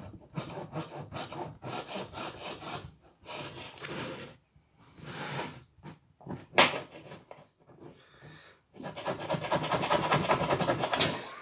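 A small knife sawing back and forth through a crusty loaf on a wooden chopping board, in several bouts with short pauses between them. There is one sharp tap about six and a half seconds in, and the longest, loudest bout of sawing comes near the end.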